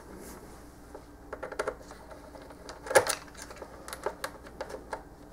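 Hands working wires loose inside a plastic food-dehydrator base: a scatter of small plastic clicks and taps, the sharpest about three seconds in.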